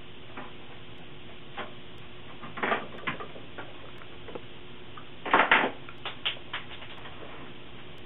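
Scattered clicks and knocks of parts being handled inside a small-form-factor PC's metal chassis, with a louder short clatter about five seconds in followed by a few quick clicks.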